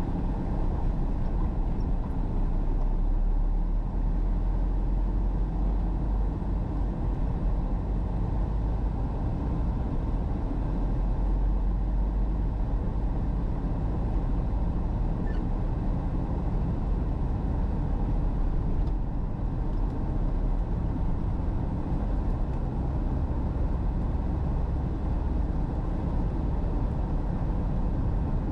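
Steady engine and road noise of a car being driven, heard as a low, even rumble from inside the cabin.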